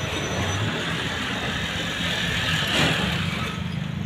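City street traffic: motor vehicle engines running, with a short loud rush of noise about three seconds in.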